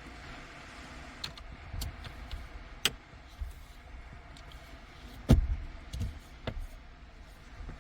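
Several sharp clicks and knocks over a low rumble, the loudest a heavy thud about five seconds in.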